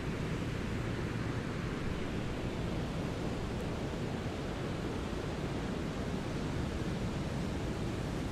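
Steady synthetic brown noise: an even, deep rushing hiss weighted toward the low end, with no events or changes.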